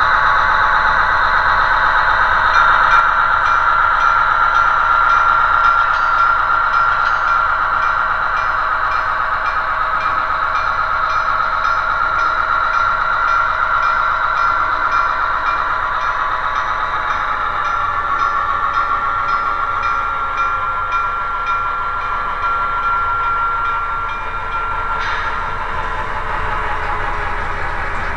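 Diesel switcher engine sound from the QSI DCC sound decoder in an HO-scale Broadway Limited SW7 model locomotive, played through the model's small speaker as it runs, together with the hum of its motor and wheels on the track. The engine sound runs steadily, then drops in pitch partway through.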